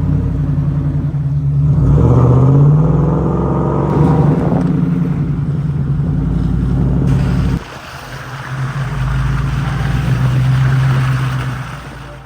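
Four-wheel-drive truck engine running as it drives the trail, pitch rising as it speeds up about two seconds in. The sound drops off abruptly about seven and a half seconds in, builds again, then fades out near the end.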